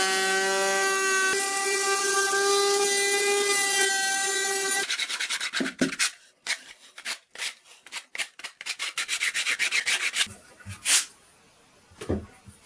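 Table-mounted sanding drum running with a steady motor whine while a carved wooden panel is sanded against it; the whine stops about five seconds in. Then come short rubbing and scraping strokes as a sanding sleeve is worked onto the drum by hand, with a knock or two near the end.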